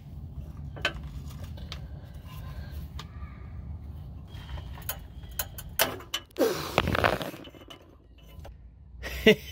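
Metal clicks and clinks of an oxygen sensor wrench, levered with a 7/8 wrench, working against a seized upstream O2 sensor in a Jeep 4.0's exhaust. Sharp clicks come about once a second at first, then a cluster, a louder rasping burst about six and a half seconds in, and several more sharp clicks near the end.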